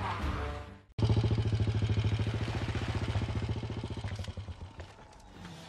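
A motorcycle engine running with a fast, even pulse that slows a little and fades away over a few seconds, as if rolling to a stop. Before it, a loud rush of noise cuts off abruptly about a second in.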